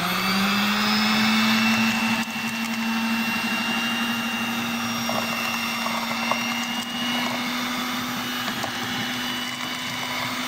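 Russell Hobbs electric hand mixer running steadily with a motor whine, its beaters churning through thick oat cookie dough. It comes up to speed, rising briefly in pitch, right at the start.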